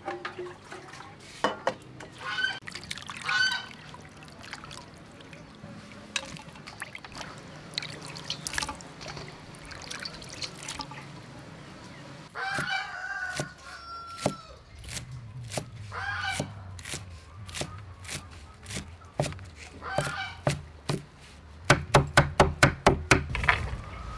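Fish balls being rinsed with water in a metal bowl, with splashing and clinks of the bowl, while fowl honk a few times in the background. Near the end comes a quick run of sharp knocks, about five a second.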